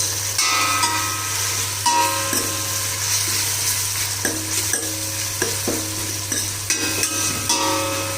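Browned onions and ginger-garlic paste sizzling in hot oil in a pan while a utensil stirs them, its strokes scraping and briefly ringing against the pan every second or so.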